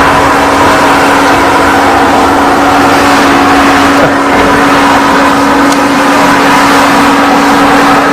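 Heavy-equipment diesel engine running hard at steady revs, a constant loud drone with a steady hum over it.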